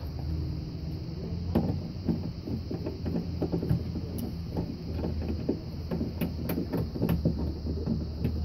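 Scattered small clicks, knocks and rattles as a hand works inside the stripped inner panel of a 2007 Honda CR-V's front door, over a steady low hum.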